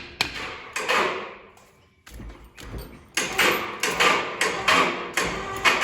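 Metal tools knocking and clanking on the cylinder head of a Lister CS diesel engine as a loosened head nut is worked off. About three seconds in, a quick run of rhythmic metallic clicking and knocking begins.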